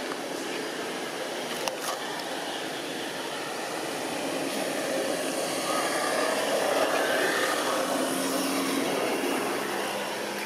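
Steady outdoor background noise with no clear single source, swelling a little in the middle and easing off near the end, with one faint click just under two seconds in.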